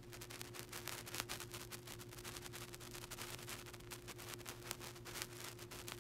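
Faint steady hum with dense, irregular crackling static.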